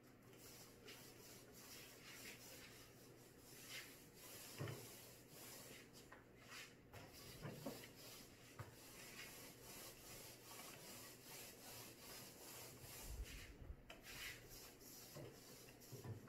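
Small foam paint roller rolling back and forth over a painted cabinet door, a faint soft rubbing with a light tap now and then.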